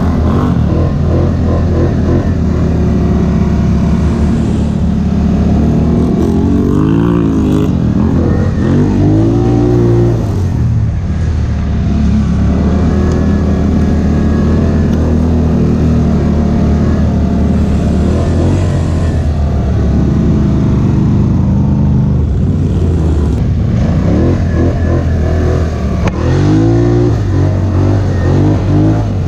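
Polaris Scrambler 1000 S ATV engine running under throttle on a trail ride. It holds a steady pitch for long stretches and revs up and down in quick bursts about a quarter of the way in and again near the end.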